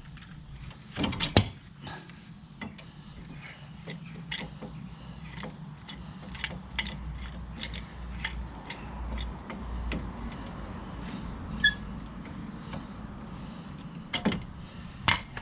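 Clamp being wound onto a car's front brake caliper to push the piston back, with scattered small metallic clicks and a sharp knock about a second in and again near the end.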